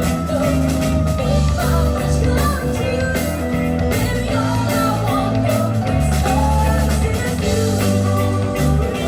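Band music: a rock-style arrangement with guitar and a steady bass line changing notes every second or so, under a wavering lead melody line.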